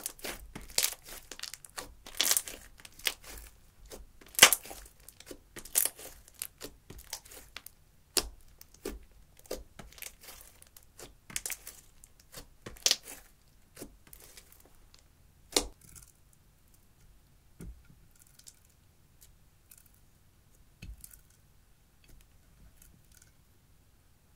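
Hands squeezing and kneading thick slime with eyeshadow mixed in, giving a dense run of sharp crackles and pops. After about sixteen seconds it thins out to a few soft clicks.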